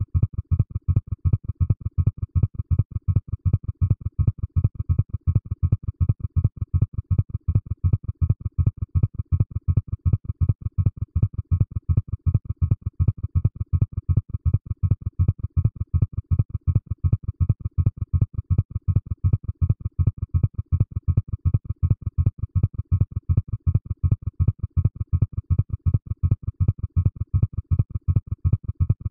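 Synthesized sci-fi flying saucer sound effect: a low hum pulsing at an even rate of about four to five pulses a second, with two faint steady high tones above it.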